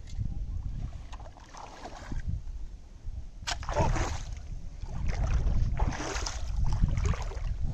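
Wheel slingshot fishing spear shot into shallow water: a sharp snap about three and a half seconds in, then a splash, then more splashing and sloshing of water. Wind rumbles on the microphone.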